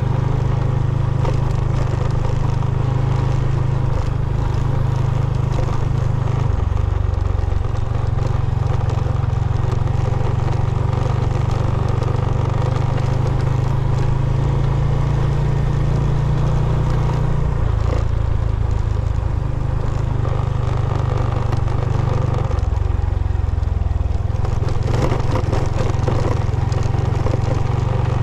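Small motorcycle engine running under way, a steady low drone whose pitch shifts to a new level a few times as the rider changes speed.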